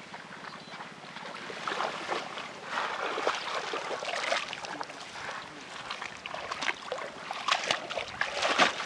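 Water splashing and sloshing as a slatted fish trap is pulled up out of shallow muddy water, with sharper splashes and knocks clustered near the end.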